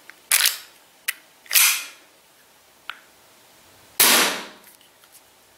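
CO2 gas blowback airsoft pistol (APS ACP, Glock type) firing three shots. Each is a sharp crack with a short hiss of gas, and the last one, about four seconds in, is the loudest. A couple of light clicks fall between the shots.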